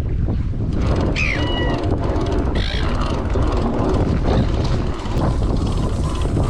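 Wind buffeting the microphone on a small boat at sea, a steady low rumble, with a brief high squeak about a second in.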